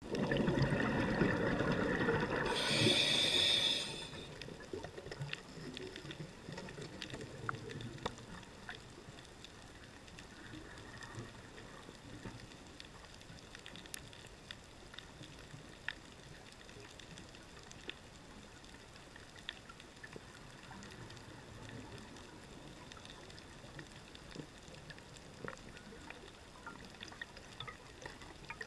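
Underwater sound on a coral reef: a loud rush of bubbles for the first four seconds, like a scuba diver exhaling through a regulator, then a quiet hiss with scattered faint clicks and crackles of the reef.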